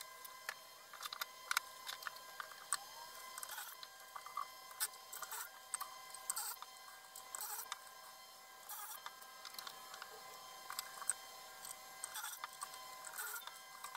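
Light clicks, knocks and short scrapes of a metal doweling jig and a plywood panel being handled and positioned. Under them runs a faint steady whine.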